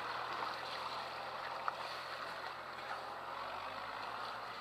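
Shallow sea water washing around a boat's hull and the submerged trailer, with a tractor engine running steadily in the background; the engine's low hum shifts in pitch about three-quarters of the way through.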